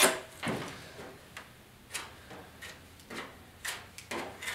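Plastic spreader scraping and clicking as body filler is picked up from a cardboard mixing board and spread over small dents on a steel truck hood: a run of short, irregular scrapes and clicks.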